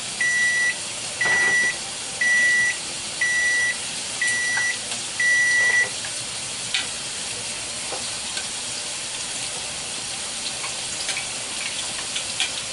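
An electronic beeper sounds six times, one high beep about once a second, and stops about six seconds in. Battered trout sizzles in hot oil underneath, with a few light clicks of metal tongs in the pan near the end.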